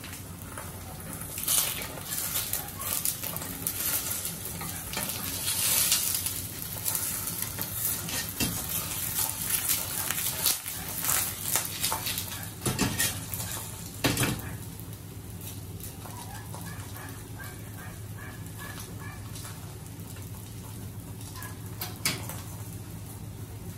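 Egg frying in a carbon steel pan, sizzling and crackling with spatters, busy and uneven for the first half or so. There are a few knocks and scrapes as the egg is moved about in the pan. After that the frying settles to a quieter, even sizzle.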